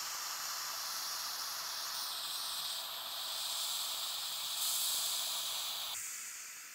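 Small H01-2 oxy-propane brazing torch burning with a steady hiss of gas and flame jetting from the tip, the hiss shifting in tone as the needle valves are worked. About six seconds in the hiss drops sharply and then fades as the oxygen is turned down.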